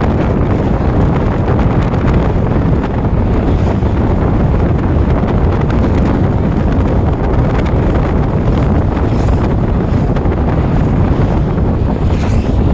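Wind buffeting the microphone: a loud, steady rumbling noise, heaviest in the low end.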